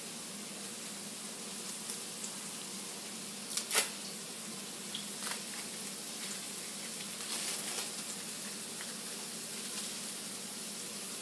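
Steady sizzle of burger meat frying in a pan, with a few small crinkles and clicks of plastic wrap as cheese slices are peeled off; one sharper click about four seconds in.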